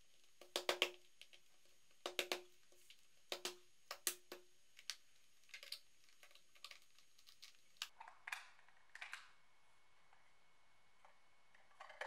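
Sharp taps and cracks, in clusters of two or three: a palm striking the handle of a flathead screwdriver wedged in the seam of a plastic laptop AC adapter case. The cracking is the glued seam giving way, a sign the case is opening. The strikes thin out after about nine seconds, leaving a few fainter clicks near the end.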